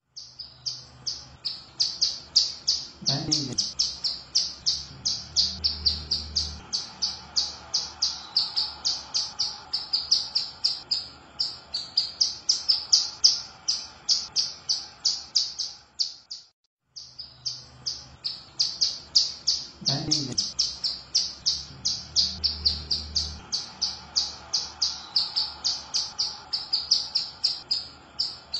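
A female ciblek gunung (prinia) calling in a steady fast run of high, sharp chirps, about four a second, with a brief break about halfway. This is a 'pancingan' lure call, played to set other ciblek singing.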